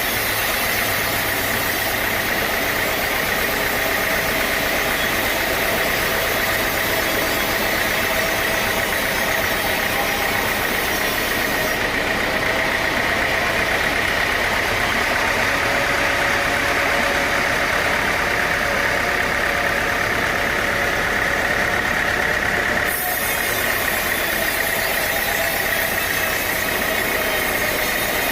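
Sawmill machinery running steadily: an engine-like drone with a steady high hum over it.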